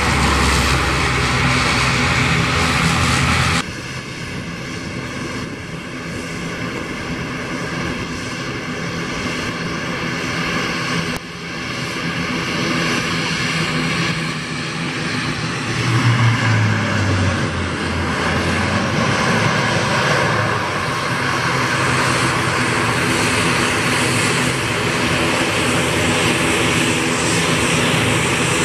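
Turboprop aircraft engines and propellers running with a steady hum of several tones. First an ATR 72 airliner, then, after a sudden cut a few seconds in, a twin-turboprop CASA C-295 military transport on the wet runway, with a low tone swelling about halfway through.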